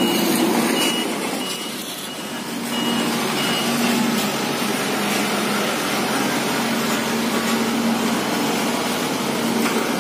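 Sakai SW652 tandem asphalt roller's diesel engine running steadily, with a reversing alarm beeping about twice a second for the first few seconds.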